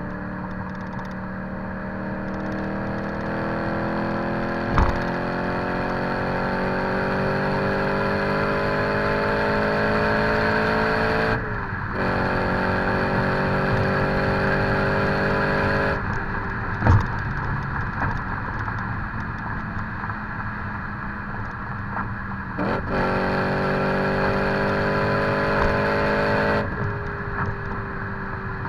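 BMW E90 M3's 4.0-litre V8 through an exhaust with the secondary catalytic converters removed and a Megan Racing Supremo cat-back, pulling hard through the gears. Its pitch climbs steadily for about eleven seconds, drops sharply at an upshift and climbs again, then falls away a little past halfway. A further pull starts about two-thirds through and ends with another drop. A few sharp thumps sound over it, the loudest about halfway.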